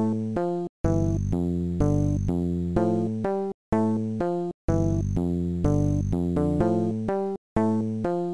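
Amiga animation soundtrack music: a synthesized tune of short notes over a bass line, broken by brief, sudden drops to silence about a second in, twice in the middle, and near the end.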